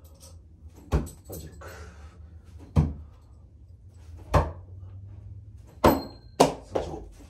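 Bo-shuriken (Japanese throwing spikes) thrown one after another and striking a wooden target board: five sharp knocks about a second and a half apart. One is followed by a brief metallic ring, and a steady low hum runs underneath.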